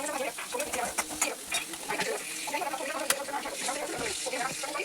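A spoon stirring and scraping vegetables in a frying pan, with repeated clicks and knocks against the pan over a light sizzle. Voices are heard faintly behind it.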